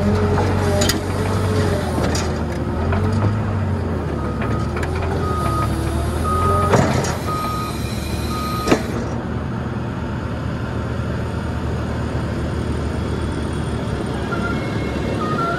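Tractor engine running, heard from the cab of a tractor carrying a front-mounted snow plow. A reversing alarm beeps five times, about once a second, through the middle, and there are two sharp clunks a couple of seconds apart.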